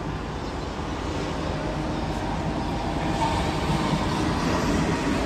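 Steady rumble of city traffic heard from high above the street, with no clear single vehicle standing out; it grows a little louder about three seconds in.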